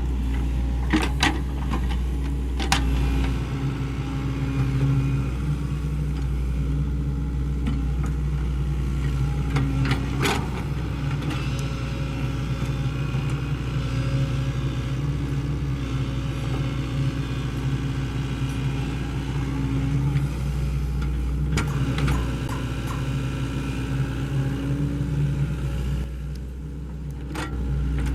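Diesel engine of a Sany SY75C excavator running steadily as it works, its pitch rising and falling a little with load, with a few sharp knocks spread through; it eases off briefly near the end.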